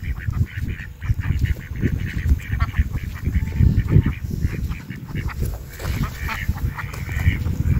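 Waterfowl calling: short, repeated honking calls, clearest near the end, over a loud, uneven low rumble.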